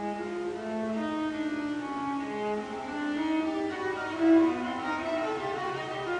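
Solo viola with orchestra playing a classical concerto: bowed strings in a melodic line of held notes, one note swelling louder about two-thirds of the way through.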